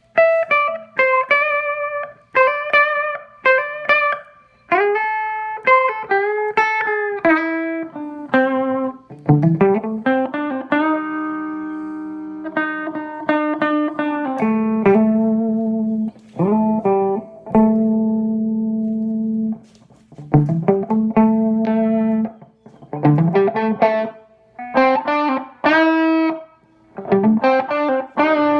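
Electric guitar, a Vogel Single Cut Jr. with a Seymour Duncan JB humbucker, played through a JTM50 valve amplifier: a noodled lead line of picked single notes with string bends and vibrato. Some notes are held and ring out for two or three seconds.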